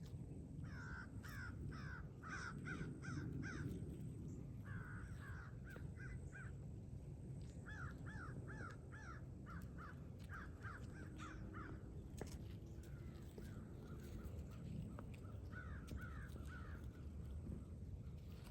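Crows cawing in quick repeated series, about five bouts of rapid calls with short pauses between, over a steady low rumble.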